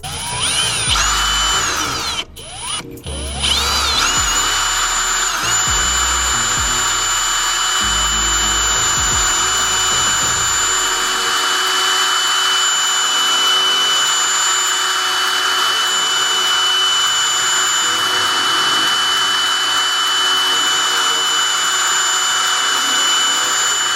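Electric drill spinning up with a rising whine, stopping twice briefly, then running steadily for about twenty seconds before cutting off. It is working in the exhaust manifold's EGT probe hole to clean out the threads in place of a pipe tap.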